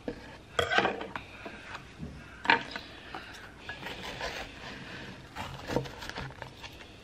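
Lid of an instant ramen cup being peeled back and handled: rustling, crinkling and scraping of packaging in a string of short bursts, the sharpest about two and a half seconds in.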